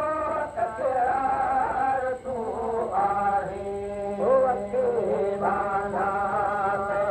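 Man singing a Sindhi molood, a devotional song, in a wavering, ornamented melody. A steady low note is held beneath the voice from about three seconds in.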